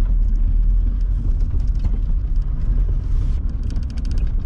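Panel van being driven, its engine and road noise heard from inside the cab as a steady low rumble, with a fast light rattling near the end.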